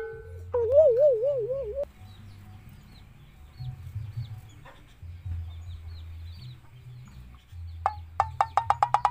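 Rooster clucking, with faint high chirps in the background. A loud wobbling, boing-like tone sounds about half a second in, and a quick run of sharp clicks comes near the end.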